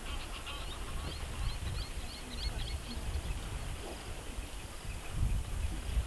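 A bird calling in a quick run of short, high chirps during the first few seconds, over a low, gusty rumble of wind on the microphone.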